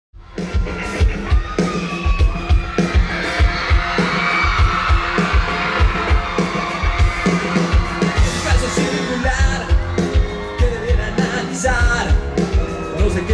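Live pop band playing on stage, with a steady bass drum beat of about two strokes a second under keyboards and singing, and some yells from the audience.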